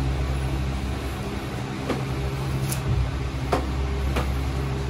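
A steady low mechanical hum, with four faint, short clicks in the second half.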